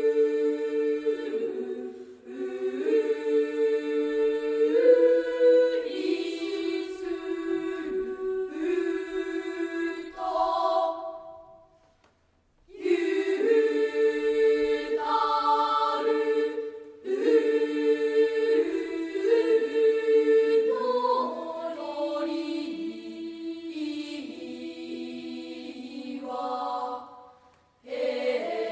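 Elementary-school children's choir singing in parts without accompaniment, in sustained phrases that break off briefly about twelve seconds in and again near the end.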